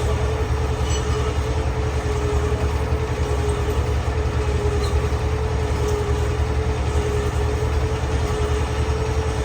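Heavy boring machine running steadily: a deep, fluttering rumble with one steady, slightly wavering mid-pitched tone over it.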